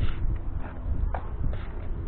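Wind rumbling on the microphone, with a few short light taps about a second apart.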